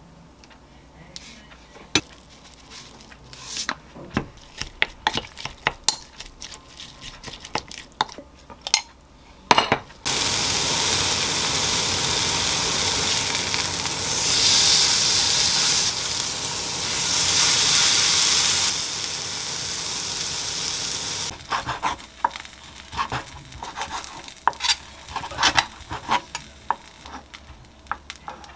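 Light clicks and taps of mixing seasoned sliced onion in a glass bowl. Then a flat iron beef steak sizzling in a grill pan for about eleven seconds, swelling about halfway through, until the sizzle cuts off abruptly. Then a knife taps on a wooden cutting board as the cooked beef is sliced.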